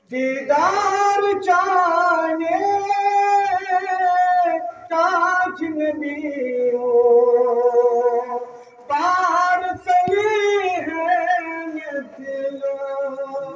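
A man singing a Kashmiri naat in long, wavering held notes, with short breaks between phrases.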